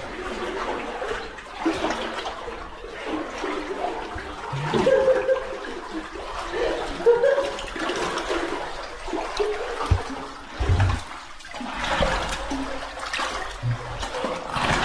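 Cave water sloshing and splashing in irregular surges as a caver wades or crawls through it.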